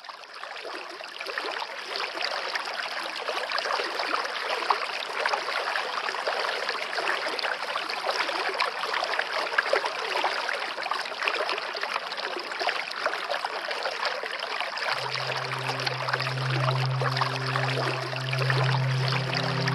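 Steady rushing noise of running water, like a stream. About fifteen seconds in, a low held music note joins it.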